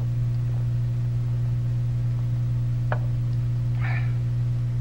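Steady low electrical mains hum with a ladder of overtones from a transferred old recording, with a single sharp click about three seconds in and a brief soft rustle just before four seconds.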